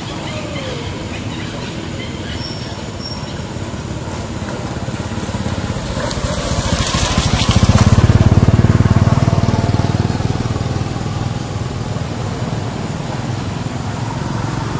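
A motor vehicle passing, its engine rumble building to a peak about eight seconds in and then fading, with a brief hiss just before the peak.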